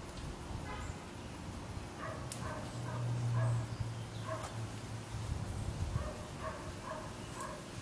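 An animal's short calls, repeated in small groups, over soft rustling of bean plants being picked by hand. A low steady hum swells in the middle and is the loudest thing for a moment.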